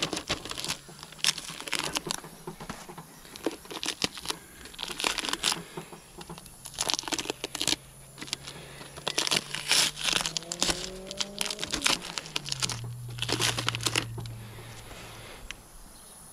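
Masking tape and masking paper being peeled off an alloy wheel and bunched up by gloved hands: a string of irregular crinkles and short tearing sounds. The tape is being pulled off straight after the lacquer coat, before the lacquer dries.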